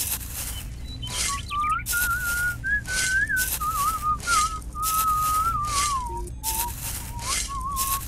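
A whistled tune, one clear note wandering up and down as a melody, starting about a second in, over a hissing sound that pulses about twice a second.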